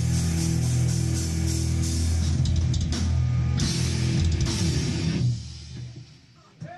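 Heavy metal band playing live, with distorted electric guitars, bass and drum kit hammering out a song's final chords and cymbal crashes. The band stops about five seconds in and the last chord rings away.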